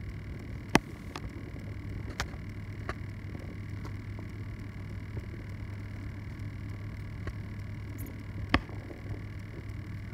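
Steady low hum and hiss, with three sharp clicks: one about a second in, one about two seconds in, and one near the end.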